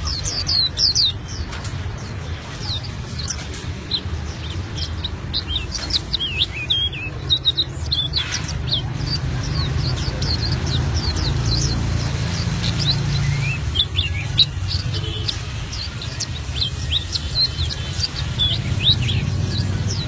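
Albino-mutation white-eye (pleci) singing a long, unbroken rolling song of rapid high chirps and short sweeping whistles, over a steady low background rumble.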